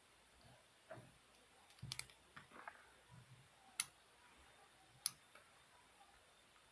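Faint handling of stationery from a pencil case: a few sharp, separate clicks, about two seconds in, near four seconds and near five seconds, with soft taps and knocks between them.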